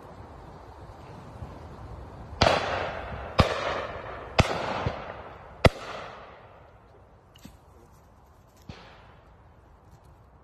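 Shotgun firing four shots about a second apart, each crack followed by a fading echo, then two much fainter cracks later on.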